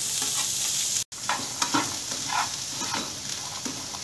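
Black chickpeas sizzling in oil in a nonstick frying pan. After a brief dropout about a second in, a spatula stirs and scrapes them around the pan in repeated strokes, while the sizzling goes on.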